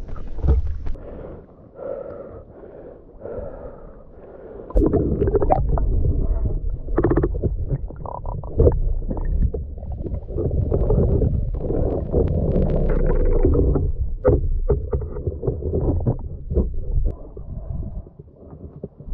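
Muffled underwater sound from a submerged camera: low rumbling water movement with gurgles and scattered knocks, growing much louder about five seconds in as the diver goes under.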